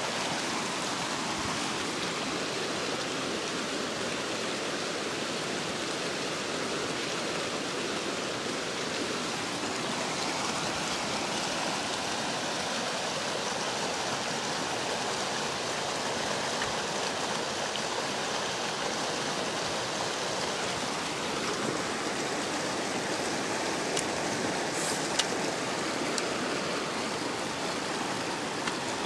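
Rapids of a fast-flowing river rushing steadily, with a few faint clicks near the end.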